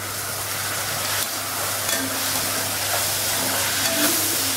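Chopped tomatoes and onions sizzling in hot oil in a kadai, stirred with a perforated metal spatula that scrapes and clicks against the pan a few times.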